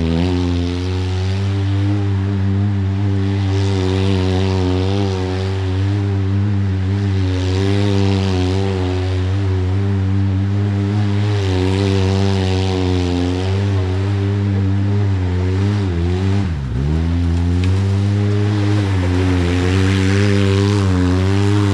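Off-road side-by-side vehicle's engine running steadily, its pitch swelling and easing every few seconds, with a brief dip and a drop in pitch about three-quarters of the way through.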